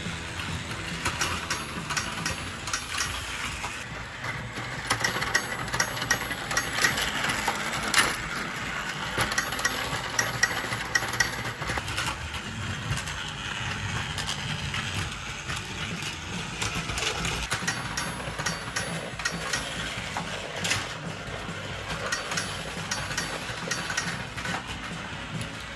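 A battery-powered toy's small motor running steadily, with plastic parts clicking and rattling along a toy track.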